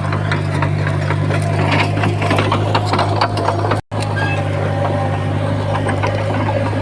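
Komatsu bulldozer's diesel engine running at a steady pitch, with scattered clanking and rattling over it. The sound drops out completely for a split second about four seconds in, then carries on unchanged.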